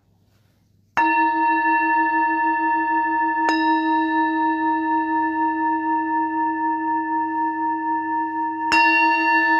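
Singing bowl struck three times, about a second in, a few seconds later and again near the end. Each strike rings on in a long, steady tone with a slow pulsing wobble.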